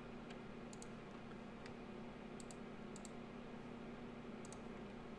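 A few faint, scattered clicks of a computer keyboard and mouse, over a low steady hum.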